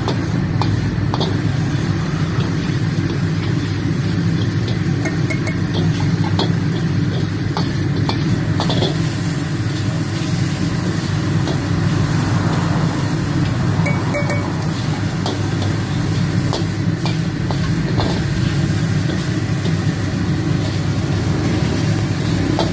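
Steel ladle scraping and clinking against a wok now and then while chicken and noodles sizzle in it. Under it runs the loud, steady roar of a gas wok burner.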